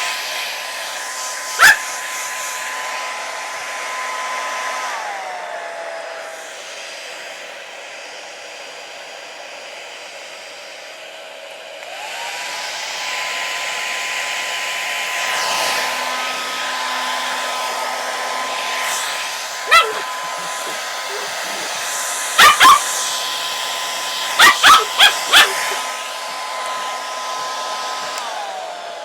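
Hair dryer running with a steady whine. Its pitch and loudness drop about five seconds in, come back up around twelve seconds, and drop again near the end. A puppy barks sharply over it, once early on and then in a run of short barks in the second half.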